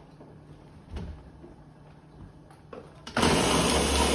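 Quiet kitchen handling with a soft knock about a second in. Then, about three seconds in, a loud electric kitchen appliance motor switches on abruptly with a rushing whir over a low hum.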